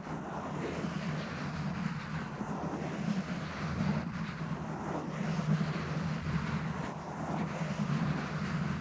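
Continuous muffled scratching and rubbing directly on a microphone, a dull, low, uneven rumble of handling noise without distinct clicks.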